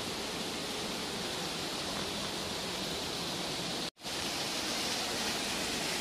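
Steady rushing of waterfall water. The sound cuts out for a moment about four seconds in and comes back slightly louder and brighter.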